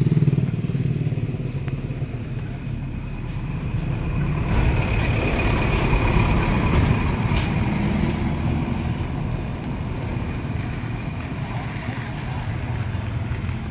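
Road traffic rumbling, swelling as a motor vehicle passes by about four to eight seconds in.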